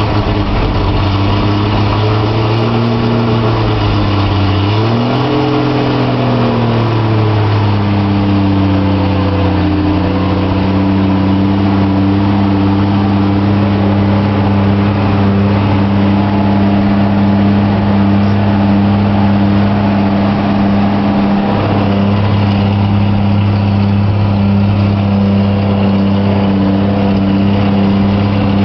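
1955 Ford Vanette step van's engine heard from inside the cab while driving. Its pitch climbs and drops in the first several seconds as it picks up speed, then holds a steady drone as the van cruises.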